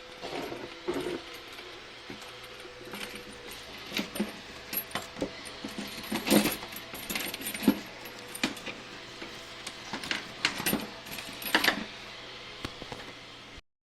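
Scattered clicks, knocks and metallic clinks of objects being handled, over a steady low hum. The sound cuts off suddenly near the end.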